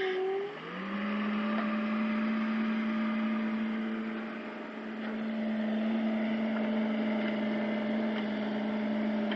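Engine of a small excavator running steadily while digging clay; its speed dips at the very start as if under load, recovers within the first second, then holds even.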